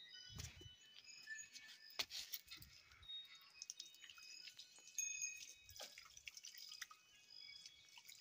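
Faint scattered high chirps of small birds, short notes at many pitches, with a few soft knocks and thumps.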